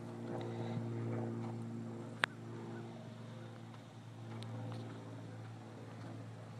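A motor running steadily with a low hum, and one sharp click about two seconds in.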